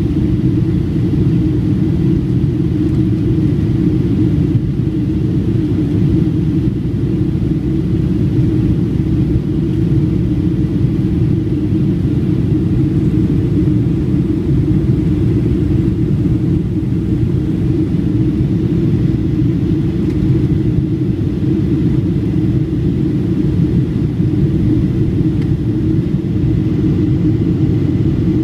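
Steady cabin rumble of a Boeing 757-200 in flight, heard inside the cabin: jet engine and airflow noise, deep and unchanging, with a faint steady high tone.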